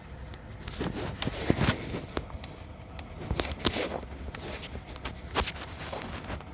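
Scattered, irregular clicks and light metallic knocks from hand tools and small engine parts being handled while the thermostat housing cover is refitted.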